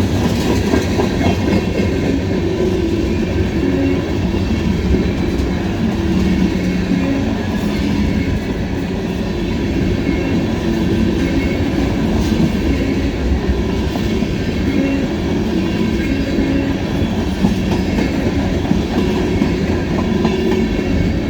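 Freight train cars rolling past: a steady, loud run of steel wheels on rail, clicking over the rail joints.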